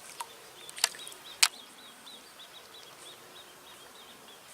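A small bird singing a rapid run of short, high chirps, about three a second, with two sharp clicks early on.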